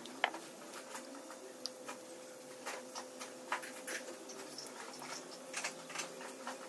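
Small metal throttle body parts clicking and tapping as they are handled and fitted together by hand: irregular light clicks, the sharpest one just after the start, over a faint steady hum.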